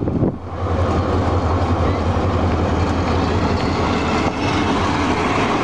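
Diesel locomotive hauling a passenger train past close by: a steady low engine drone over the continuous rumble of the carriages on the rails.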